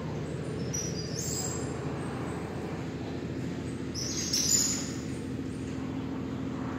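Steady low mechanical hum, with two short high-pitched chirps: one about a second in and a louder one a little past four seconds.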